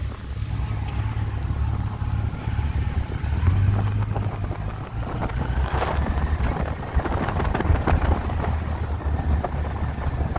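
Wind buffeting the microphone over a motorcycle engine running, its note rising and falling as it takes the bends.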